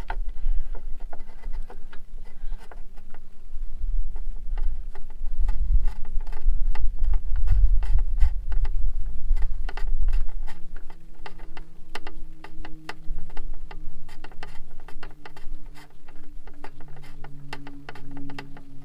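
Rapid small clicks and scrapes of hands screwing a spark plug, coated with anti-seize, into a small engine. Wind rumbles on the microphone, heaviest about a third of the way in. A faint steady hum comes in about halfway and rises slightly in pitch.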